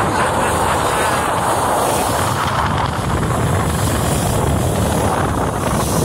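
Steady rushing noise of a motorboat under way: engine drone mixed with wind buffeting the microphone.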